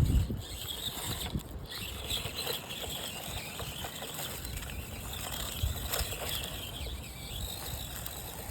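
Axial SCX24 Deadbolt micro RC crawler's small electric motor and gearbox whining unevenly as it crawls slowly, with wind buffeting the microphone and a strong gust right at the start.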